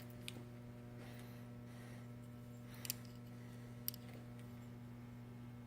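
Three light clicks of calipers and hub parts being handled, the middle one the loudest, over a steady low electrical hum.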